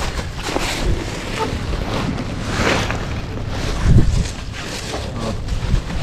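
Wind buffeting the microphone, a rough low rumble with noisy rushes.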